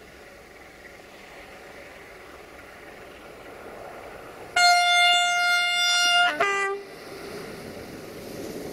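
060-DA (LDE2100) diesel-electric locomotive approaching with a freight train, its Sulzer diesel engine running steadily and slowly growing louder. Past halfway its horn sounds a long, loud high blast of nearly two seconds, then drops to a short lower note.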